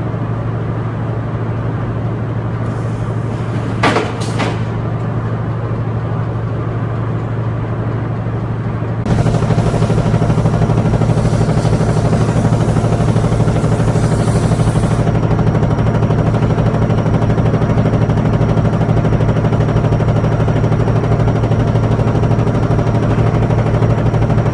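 Felt production machinery running with a steady low hum. A pair of sharp clacks comes about four seconds in, and about nine seconds in the noise becomes louder, as the felt sheet runs under the line's steel rollers, with a thin high whine added later.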